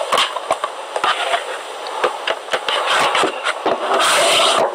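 Handling noise from a plastic DVD case turned and gripped in the hands: a run of irregular clicks and knocks, with a louder burst of rustling about four seconds in.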